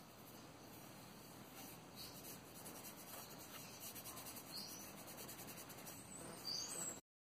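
Fingers rubbing metal polish onto a small brass end plate of a wooden spirit level, a faint soft rubbing. A few short high chirps from birds sound over it, and the sound cuts off suddenly near the end.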